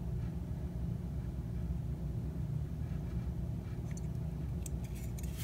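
Steady low background hum, with a few faint light clicks about four to five seconds in as a small circuit board is handled.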